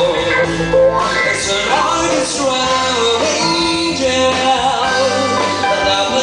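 Live band performing a song: a sung melody with held, wavering notes over electric guitars, drum kit and keyboard.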